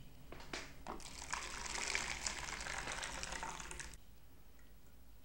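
Hot water poured for about three seconds, then stopping sharply, to warm the porcelain gaiwan. A few light porcelain clinks come just before.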